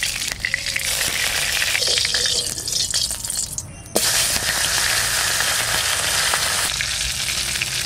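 Mustard oil crackling as it heats in a steel kadai. About four seconds in, a hilsa fish head goes into the hot oil and a loud, steady sizzle of frying begins.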